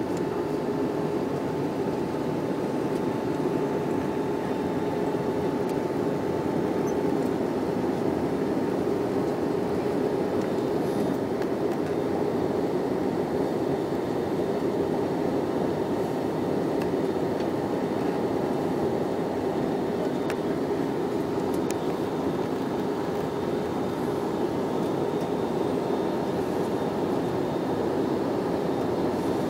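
Jet airliner cabin noise in flight: a steady drone of engines and rushing air heard inside the cabin, with a faint steady whine that shifts slightly in pitch about seven seconds in.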